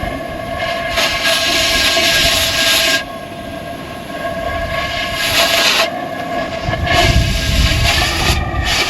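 Cutting torch hissing hard on steel in three stretches of about one to two seconds, throwing sparks and molten metal, over a steady machine hum.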